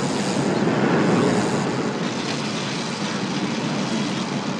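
Steady roar of city traffic, swelling a little about a second in.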